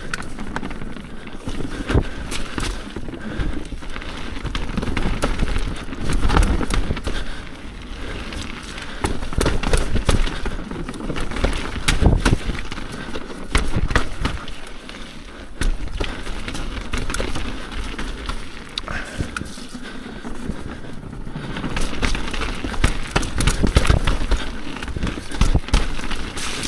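Commencal mountain bike ridden fast down a wet dirt trail: tyres on the wet ground, with chain slap and frame rattle and frequent sharp knocks from the bumps, swelling and easing as the speed changes.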